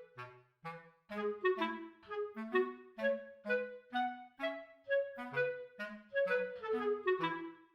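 Background music: a quick run of short, bouncy staccato notes over lower bass notes.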